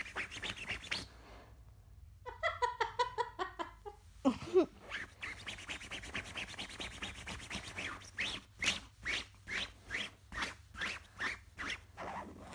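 Fingernails scratching along cotton bedsheets in repeated strokes, about two a second and louder in the last few seconds. About two seconds in, an umbrella cockatoo laughs in a quick run of pitched, choppy calls, then gives one short sliding call.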